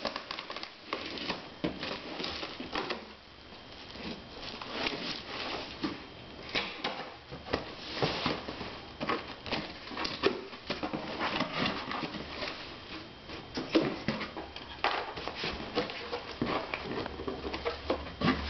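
Cardboard shipping box being handled and opened by hand: irregular scraping, tapping and rustling of the cardboard as the flaps are pulled open, then crinkled paper packing being rustled near the end.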